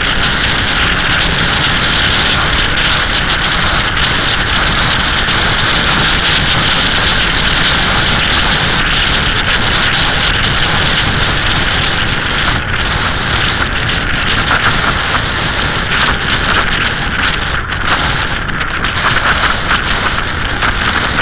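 Steady wind rush over the microphone of a camera on a Suzuki SV1000S at cruising speed, with the motorcycle's engine and tyre noise underneath.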